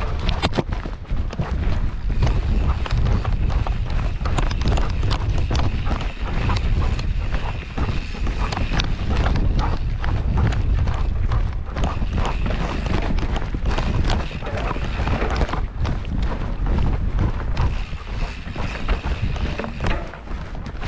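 Wind buffeting the microphone of a GoPro Hero 8 strapped to a running dog's chest harness. Frequent quick knocks and scuffs come from the dog's strides jolting the camera and harness.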